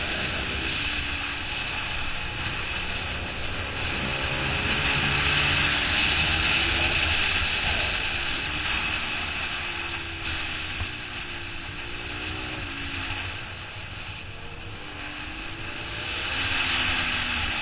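Onboard sound of a 2008 Suzuki SV650's 90-degree V-twin engine at racing speed, its pitch rising and falling repeatedly as the rider drives through the corners, under a heavy wind rush on the microphone.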